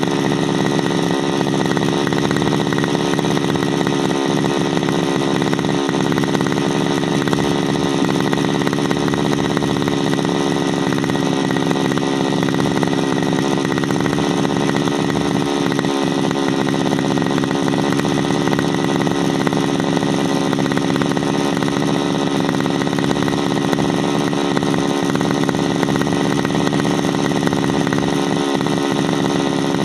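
33cc backpack brushcutter engine idling steadily at a constant pitch.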